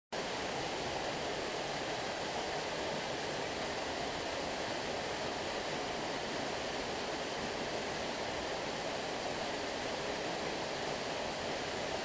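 Steady, even rush of a tall waterfall plunging into a pool, cutting in suddenly right at the start.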